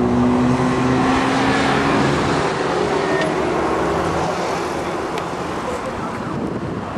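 Subaru Impreza WRX STi's turbocharged flat-four engine working hard through an autocross run, its pitch wavering up and down with throttle. The engine note is strongest early and fades over the second half as the car moves away.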